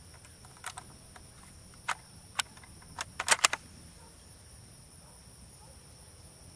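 Sharp metallic clicks and clacks as a Carcano M41 bolt-action rifle is loaded with an en-bloc clip and the bolt worked closed, ending in a quick cluster of clacks about three seconds in. A steady high insect whine runs behind.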